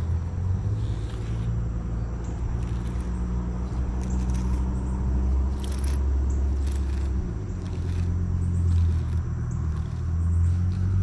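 A steady, low engine rumble, like a motor vehicle running nearby, that shifts in pitch about seven seconds in. A few light clicks come and go over it.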